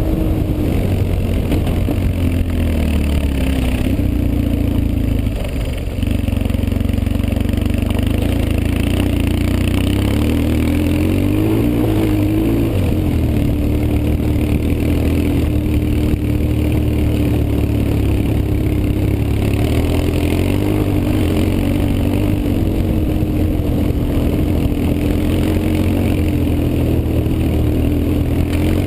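BMW R 1150 GS's flat-twin boxer engine running under way, its note rising and falling with the throttle. It eases off briefly about five to six seconds in, then picks up again.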